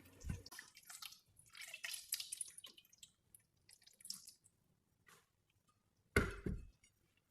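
Faint wet squishing and scraping of hands working garlic and seasoning into a raw whole chicken, with one louder knock about six seconds in.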